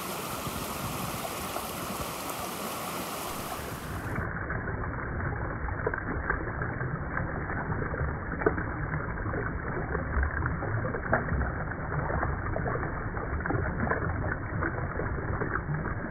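Mountain stream running over rocks. About four seconds in, it switches to a duller, muffled sound of water sloshing with many small splashes, as a hand holds a brook trout in the shallow current.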